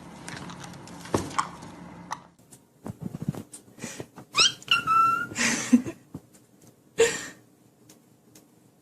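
Pet parrot calling: a few short whistled calls rising in pitch about four and a half seconds in, then harsher squawks around five and a half and seven seconds.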